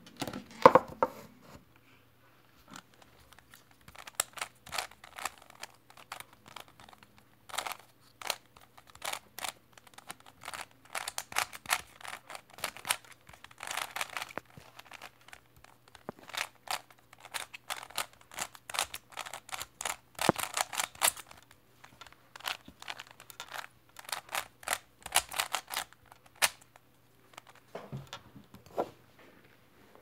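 Plastic 3x3 Rubik's cube being turned by hand: quick runs of rapid clicking layer turns with short pauses between them. A louder knock of handling about a second in.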